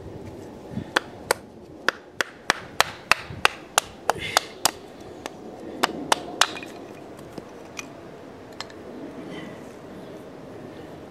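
Batoning: a wooden baton knocking on the spine of a Casström No. 10 Swedish Forest Knife, driving the blade down through a small stick of wood on a stump. About fifteen sharp knocks, roughly three a second, with a short pause before the last three; then the knocking stops.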